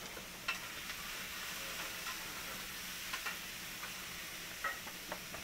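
Faint steady hiss and crackle of a wood cooking fire, with a few scattered small pops.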